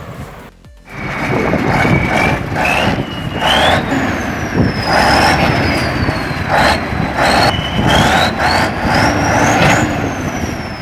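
Kirovets K-700A tractor's diesel engine working hard under load, surging repeatedly, with a high whine that rises and falls in pitch.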